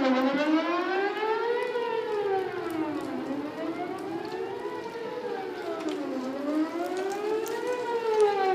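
Outdoor tornado warning siren wailing, its pitch rising and falling smoothly in a slow cycle of about three seconds, three full rises in all. It is sounding a live tornado warning, not a test.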